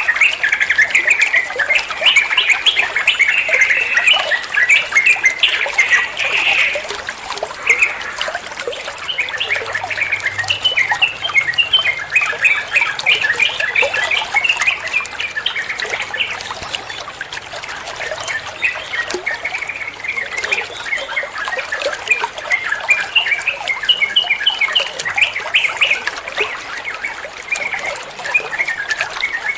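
Trucuan bulbul singing a rapid, continuous run of chirping phrases over a steady background hiss.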